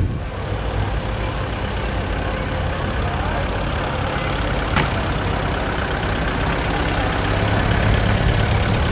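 A car engine running at low speed: a steady low hum that grows slightly louder near the end, with one sharp click about five seconds in.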